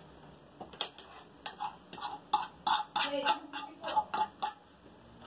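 Utensil scraping and clicking against a small frying pan as cooked food is scraped out of it: about a dozen short, irregular scrapes and taps, some ringing briefly.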